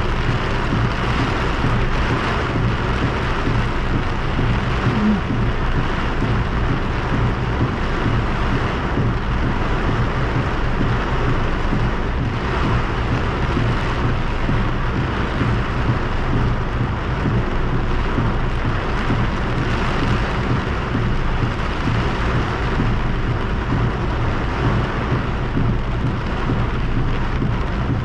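Heavy rain beating on a car's windshield and roof, heard from inside the car: a loud, steady, even rush with a low hum underneath.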